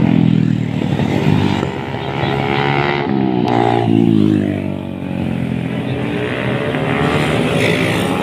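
Several small motorcycle engines revving as they pass through a curve, overlapping, their pitch rising and falling.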